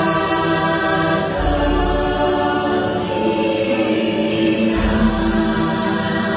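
Theme-park boat ride soundtrack: a choir singing long, held chords, with a deep low swell coming in twice.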